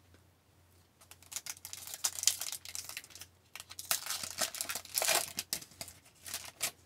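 A 2018-19 Upper Deck Series 2 hockey card pack's wrapper being torn open and crinkled, irregular crackling that starts about a second in, with a short pause about three seconds in.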